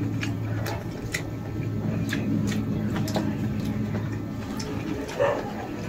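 A person chewing and eating, with scattered small clicks of the mouth, over a steady low hum.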